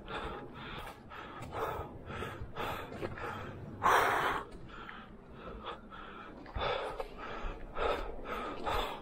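A man breathing hard in quick, heavy breaths, about two a second, with one louder breath about four seconds in: out of breath from climbing a steep rocky mountain trail.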